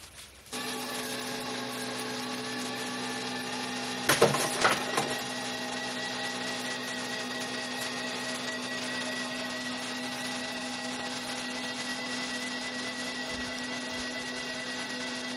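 Electric motor of a solar-powered pottery machine running with a steady hum, coming in about half a second in, with a few knocks about four seconds in.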